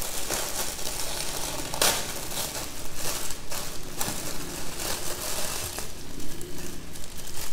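Dry crispy Nagasaki sara noodles being crushed by hand inside their plastic bag: the bag crinkles and the brittle noodles crackle as they break, over and over in irregular squeezes.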